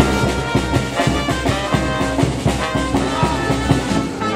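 Brass band playing a lively tune, trumpets and trombones over a steady beat.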